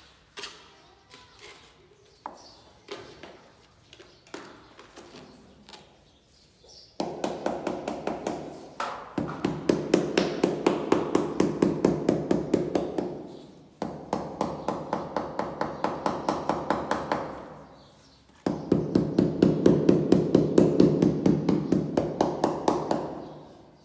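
Mallet tapping a freshly mortared skirting tile into place, rapid even taps about four or five a second in three long runs, the first starting about seven seconds in. Before that, a few light scrapes and clicks of a trowel spreading mortar.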